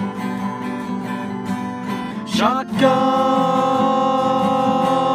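Theme-song music with guitar; about two and a half seconds in, a sliding rise leads into a long held note.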